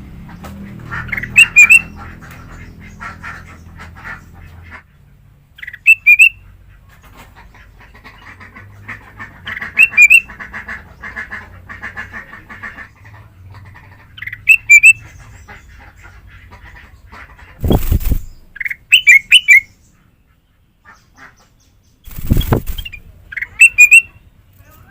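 Kutilang emas, a bulbul, singing short, loud, clear whistled phrases every four seconds or so, with softer chattering between them. Two heavy thumps come in the second half.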